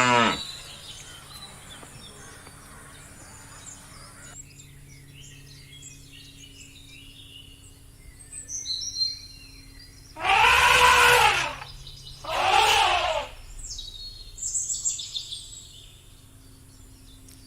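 Birds chirping over outdoor background noise, broken by two loud, harsh calls from a large animal about ten and twelve seconds in. Each call lasts about a second and rises then falls in pitch.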